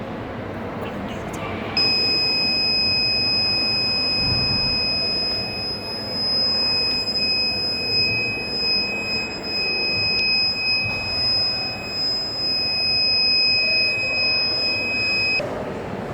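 Electronic buzzer on an Arduino explosion-detection model sounding one continuous high-pitched tone, the system's alarm. It switches on about two seconds in and cuts off suddenly shortly before the end.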